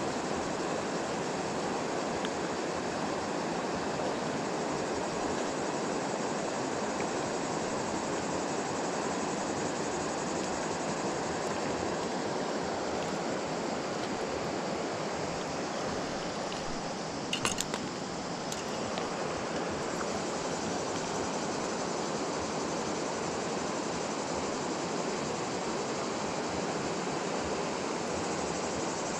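Steady rush of river water flowing over a shallow gravel bed. A few sharp clicks come about two-thirds of the way through.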